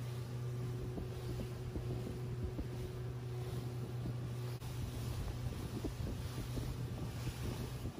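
Steady low hum of a large ship's engines, with wind buffeting the microphone.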